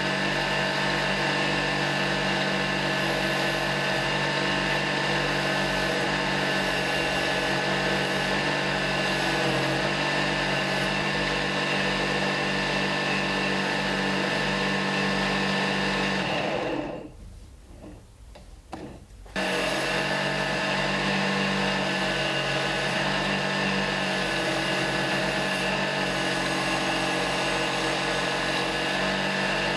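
A homemade lathe driven by a 0.6 kW electric pump motor running steadily, with a steady hum and hiss, as a hand chisel cuts the spinning workpiece. The sound drops away for about two seconds a little past the middle, then comes back.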